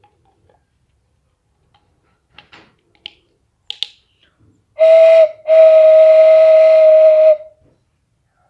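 Bamboo kite whistle with a carved wooden cap being blown to test it: a short toot, then a longer steady breathy note of one pitch for about two seconds. Its mouth is only roughly opened and not yet tuned. A few light wooden clicks of the cap being handled on the tube come before.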